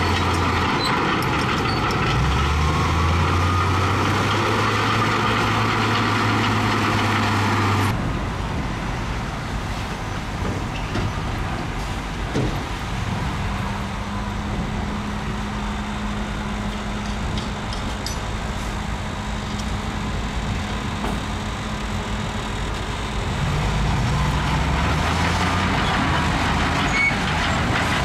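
Heavy diesel earthmoving machinery working, the engine note stepping up about two seconds in. The sound drops suddenly about eight seconds in to a quieter engine with a steady hum, then the engine grows louder again near the end.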